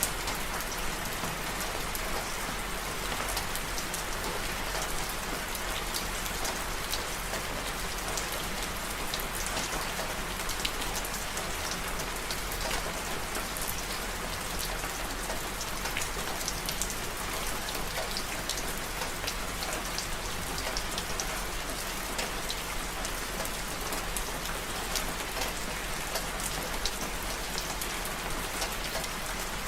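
Steady rain falling, an even hiss with many separate drops tapping on a hard surface.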